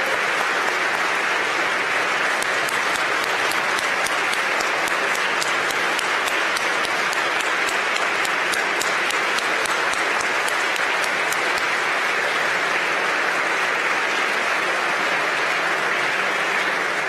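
Sustained applause from a large audience, steady throughout, with single sharp claps standing out through the middle stretch; it dies away near the end.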